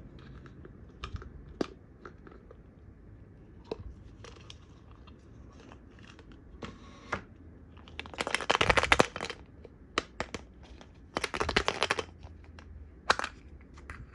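A blue plastic surprise egg and play dough handled by hand: scattered light clicks and taps, then two louder stretches of plastic clicking and scraping, about eight and eleven seconds in, as the egg is handled and pulled open.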